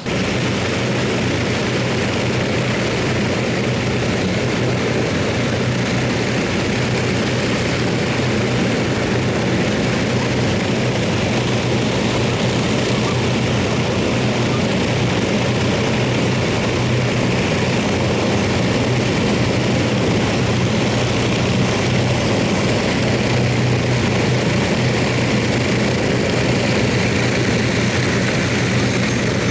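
Avro Lancaster's four Rolls-Royce Merlin piston engines running steadily, a loud even drone with a low hum that cuts in abruptly at the start and holds without change.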